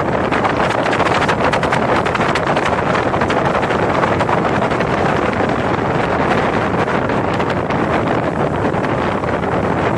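Speedboat under way at speed: steady engine and rushing water noise, with wind buffeting the microphone throughout.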